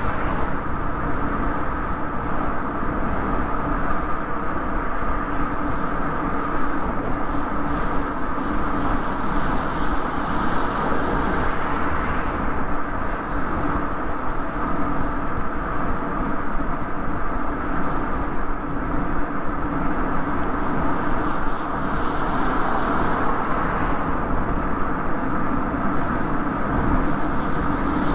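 Toyota Yaris on the move, heard from a microphone on the outside of its rear hatch: steady tyre and road noise with engine hum. A few brief swells of higher hiss come and go.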